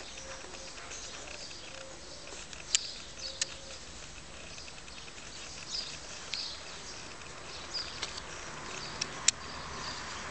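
Small birds chirping in short, scattered high calls. Three sharp clicks stand out: two close together about three seconds in and one near the end.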